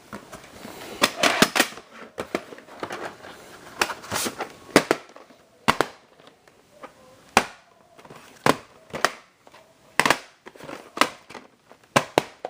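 Irregular sharp plastic clicks, knocks and rustling of a VHS tape and its case being handled.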